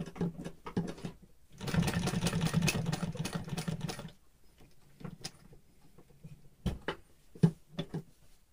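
Industrial sewing machine stitching denim: a couple of short bursts, then a steady run of rapid stitches lasting about two and a half seconds, sewing double-row topstitching on a jeans pocket. A few separate sharp clicks and knocks follow in the second half.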